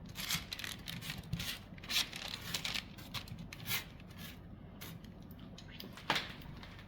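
Parchment paper rustling and crinkling in short irregular bursts as potatoes are pushed around on a parchment-lined baking pan, with one sharper click about six seconds in.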